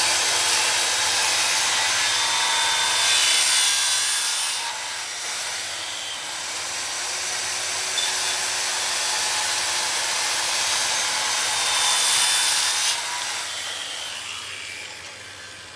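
Corded circular saw running and crosscutting a 2x6 board, cutting off two short pieces. The sound brightens twice as the blade goes through the wood, a few seconds in and again near the end. Then the motor winds down.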